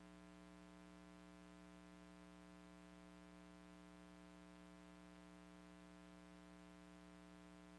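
Near silence: a faint, steady electrical hum and hiss from the recording, which cuts off with a short click at the end.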